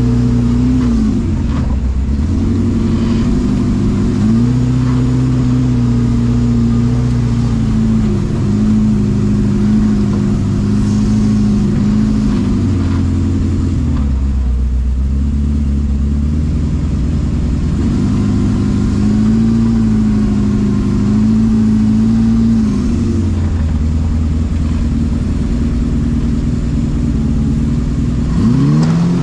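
Engine of an FJ40-based off-road trial buggy heard from inside its open cab, working under load over rough ground. The revs climb, hold and drop back again and again, with a quick rev-up near the end.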